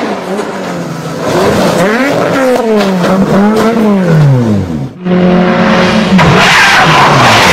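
Rally car engine at speed, the pitch rising and falling with throttle and gear changes. About five seconds in it cuts to another rally car coming on hard, its engine tone under a loud rushing noise.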